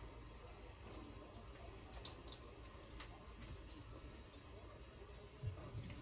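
Faint water dripping and trickling into a kitchen sink as a paper towel is wetted under the tap, with a few light drip ticks.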